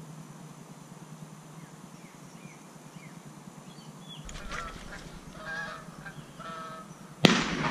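Wild geese honking in several short calls, then a single loud shot from a 12-gauge Browning A5 semi-automatic shotgun near the end, the report trailing off.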